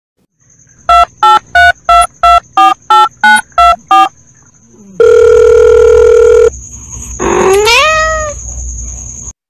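Telephone keypad tones dialing ten digits in quick succession, then a long steady phone tone, then a cat's single rising meow.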